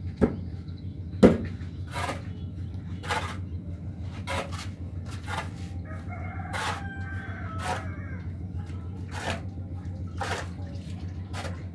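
A hand mixing blade chopping and scraping through wet sand-and-cement mortar mix on a concrete floor, a sharp stroke roughly once a second as the mix is worked. A rooster crows once about six seconds in, over a steady low hum.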